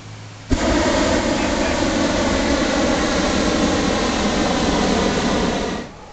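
Hot air balloon's propane burner firing in one long blast of about five seconds, starting abruptly about half a second in and cutting off near the end.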